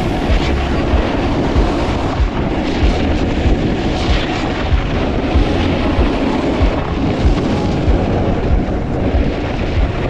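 Steady rushing noise of a downhill ski run: wind buffeting the microphone, with frequent low rumbling gusts.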